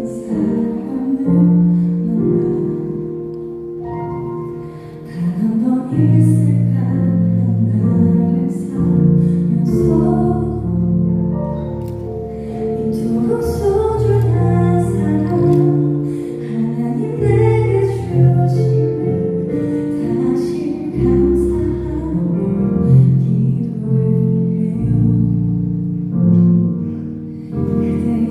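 A slow song sung over gentle instrumental accompaniment, with held notes and a steady bass line.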